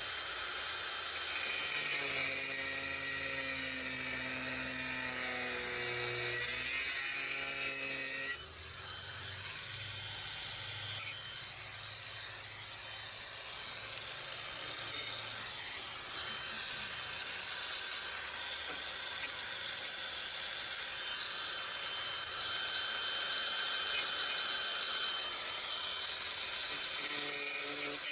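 A handheld power tool cutting out rusted sheet metal, running steadily with a shifting pitch as it bites. Its sound changes about eight seconds in.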